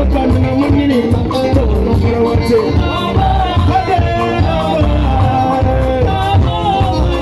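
Live band music played loud through PA speakers: a singer over drums and bass with a steady, regular beat.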